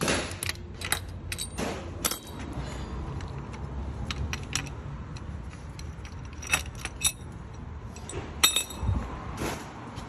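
Scattered metallic clicks and clinks of camshaft timing tools and hand tools being handled and taken off the engine, with a few short swishes of movement.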